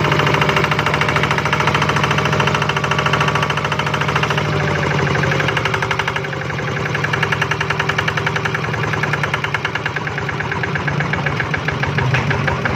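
Kubota RD110 DI-N single-cylinder horizontal diesel engine running, with a rapid, even firing beat that holds throughout, its speed easing slightly about halfway through.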